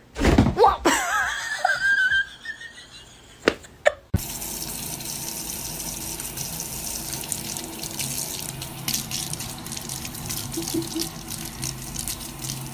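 A wavering, sliding tone and a few sharp knocks, then from about four seconds in a steady rush of running water.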